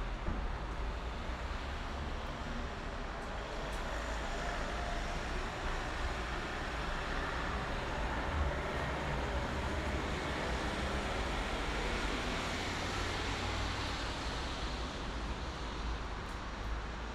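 Steady highway traffic: a continuous wash of tyre and engine noise with a low rumble from passing vehicles, swelling slightly and easing off again.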